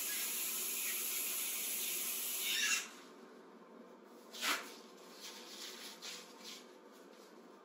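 Warm tap water running steadily from a faucet into a wash basin, swelling briefly before the faucet is shut off about three seconds in. A single knock follows a little later, then a few faint handling clicks.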